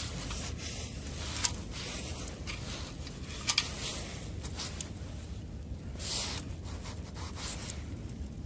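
Scattered rustling and scraping noises with a few sharp clicks, about a second and a half in and twice close together about three and a half seconds in, over a steady low rumble.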